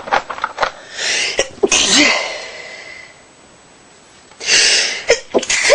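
A young woman sneezing repeatedly in a fit. Two sneezes come about a second in and two more near the end, the last the loudest.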